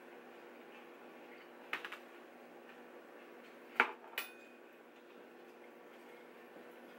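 A few sharp clicks of utensils and tableware during a meal, the loudest just before four seconds in, followed at once by a short ringing clink, over a faint steady hum.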